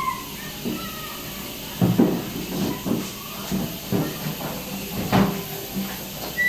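Kitchen knife cutting onion and tomato on a board, a series of irregular knocks, over a steady hiss.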